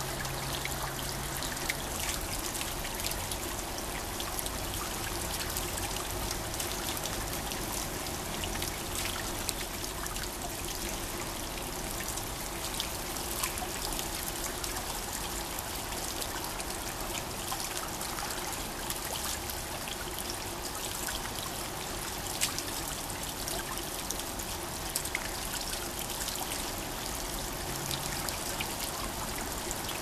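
Water falling from a garden water-curtain waterfall and splashing steadily into a pond: an even, unbroken rush of water with many small splashes.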